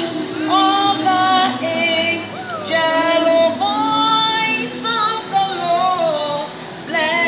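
A woman singing a hymn, holding long notes with a slight waver in pitch.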